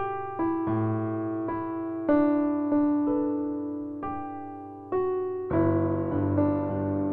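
Background piano music: slow single notes and chords, each struck and left to fade. A fuller chord with a low bass comes in about two-thirds of the way through.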